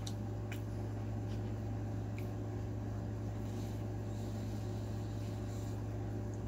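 Faint wet mouth clicks from chewing, then soft sips of an iced drink through a metal straw, over a steady low electrical hum.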